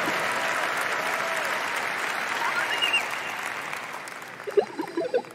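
Large audience applauding, dying away about four seconds in, with a few short pitched chirps near the end.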